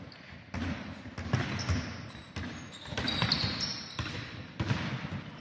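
Basketball bouncing on the court as it is dribbled, a sharp bounce every half second to second, with a few short high squeaks of sneakers on the floor about three seconds in.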